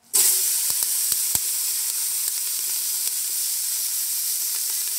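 Sliced onion and chopped green bell pepper sizzling in a hot stainless steel pot: the sizzle starts abruptly, with a few sharp pops in the first second and a half, then holds steady. The vegetables are being sautéed as the base for collard greens.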